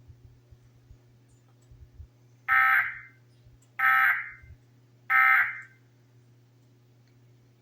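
Emergency Alert System end-of-message code: three short, buzzy digital SAME data bursts about a second and a quarter apart, signalling that the alert message is over.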